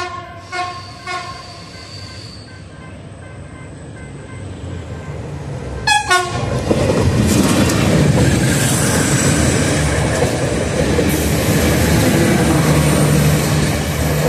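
TCDD MT 15444 railcar set sounding its horn: a few short toots, then a sharp double blast about six seconds in, followed by the loud rumble and wheel clatter of the train passing over the level crossing.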